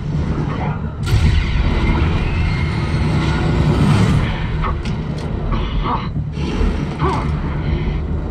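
Fighter-jet film soundtrack played through a home-theater speaker system: deep jet engine rumble with a loud swell and rush of a low, fast flyby about a second in, easing after about four seconds.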